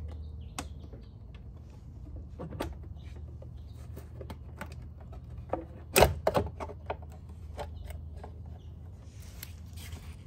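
Scattered clicks and knocks of a scooter's plastic lower body panel being handled and shifted by hand. A sharp knock about six seconds in, followed by a few quick clatters, is the loudest. A low steady hum runs underneath.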